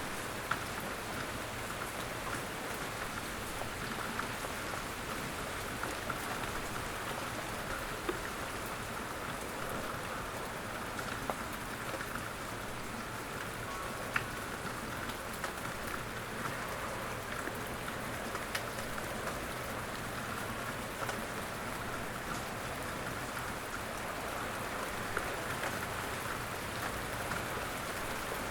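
Steady outdoor rain falling, a dense even hiss with distinct individual drops ticking now and then.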